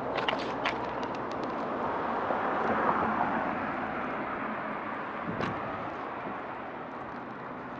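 A car passing by, its road noise swelling to a peak about three seconds in and then slowly fading away. A few light clicks come in the first second.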